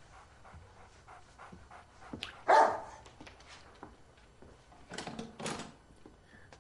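A dog barking indoors: one loud bark about two and a half seconds in, then two quieter barks in quick succession near the end.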